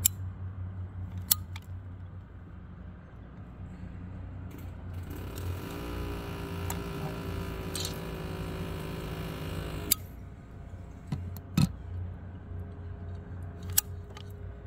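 A caulking gun clicking now and then as thick roofing sealant is squeezed out of its tube onto a metal roof flashing, over a low steady hum. In the middle a steady droning tone runs for about five seconds and cuts off with a click.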